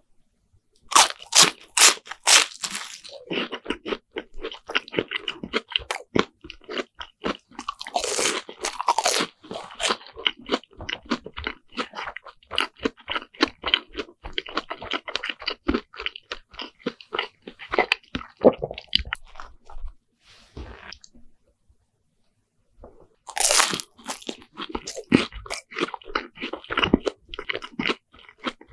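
Loud crunching bites into a deep-fried bread sandwich with a crisp fried crust, followed by steady chewing. About two seconds of near silence, then another run of loud crunching bites near the end.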